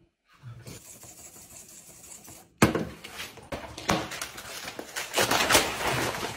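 Sheets of notebook paper being crumpled up in the hands: quiet rustling at first, then a sudden loud crackling about two and a half seconds in that keeps going.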